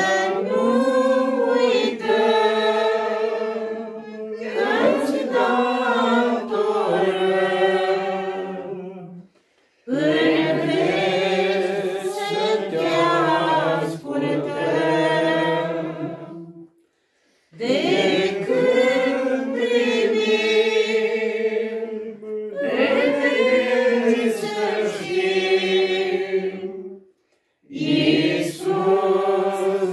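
Small group of voices, mostly men's, singing a hymn in unison without accompaniment, in long phrases of about eight seconds with brief breaks between them.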